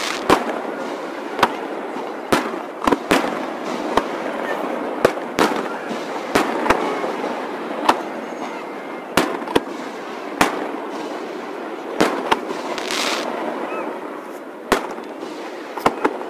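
Aerial fireworks shells bursting, played back sped up: an irregular run of about twenty sharp bangs, roughly one a second, over a steady noisy background, with a brief hissing burst about two-thirds of the way through.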